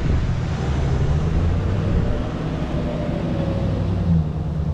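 Chevrolet Silverado 2500HD pickup truck engine running steadily at low speed close by as the truck pulls a round hay bale.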